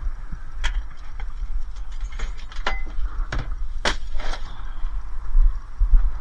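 Scrap being handled and loaded: about half a dozen sharp knocks and clatters, bunched in the middle, over a low rumble.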